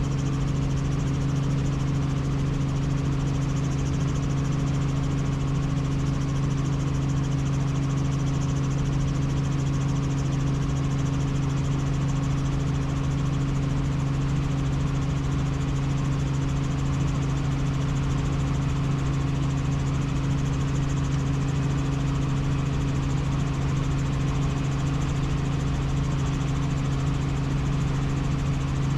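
Helicopter running with a steady, even drone: a strong low hum with a second tone above it over a constant rush of noise, unchanging throughout.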